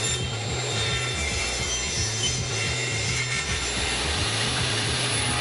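Woodworking machine cutting bent plywood: a steady cutting noise with a low hum underneath, even throughout.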